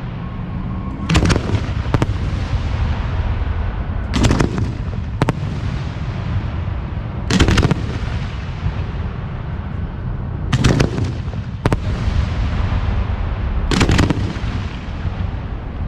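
Aerial firework shells booming in a steady sequence, one roughly every three seconds. Several booms are followed about a second later by a second report, and each trails off in a rolling echo over a constant low rumble.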